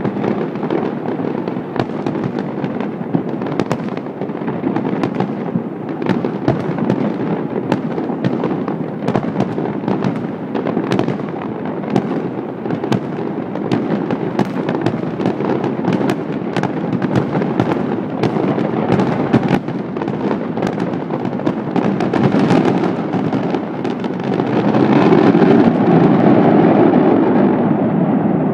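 A fireworks display: a continuous barrage of bangs and crackling, with many sharp cracks over a rumbling roar. It swells to its loudest in the last few seconds.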